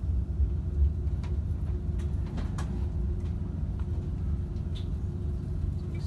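City street ambience: a steady low rumble of traffic, with a faint constant hum and a few light ticks.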